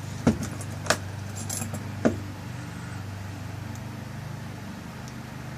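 Small metal parts of a lock cylinder clicking and clinking as the tail piece is fitted and screwed on, with three sharp clicks in the first two seconds, over a steady low hum.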